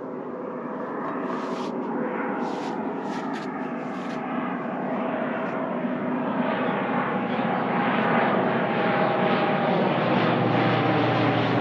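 An engine running and getting steadily louder, its pitch sliding slightly downward, with a few sharp clicks in the first few seconds.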